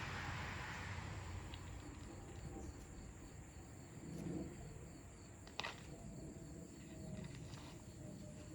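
Faint outdoor background with a steady high insect-like drone, and one sharp knock a little past halfway, with a few fainter clicks, from the shingle tear-off on the roof.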